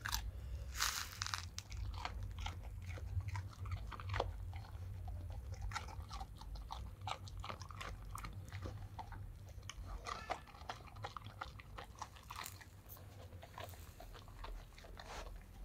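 A dog crunching and chewing raw carrot, a quick irregular run of crisp crunches.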